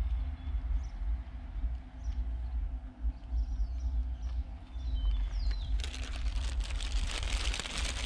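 Low wind rumble on the microphone with a bird chirping a few times around the middle, then a clear plastic parts bag crinkling and rustling for the last couple of seconds.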